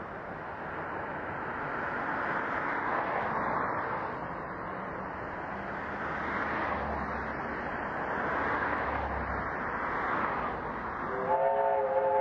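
Steam locomotives working towards the listener, a steady rushing exhaust noise that swells and eases, with a low rumble partway through. Near the end a multi-note steam whistle chord begins to sound.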